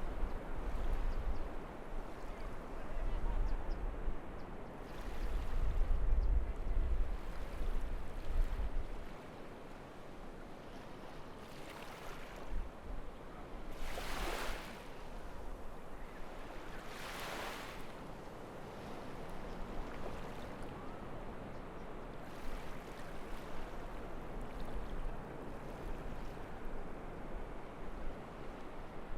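Ocean waves breaking and washing up a beach in strong wind. A heavy low rumble of wind on the microphone fills the first third and then eases. Several surges of surf hiss stand out, the loudest two around the middle.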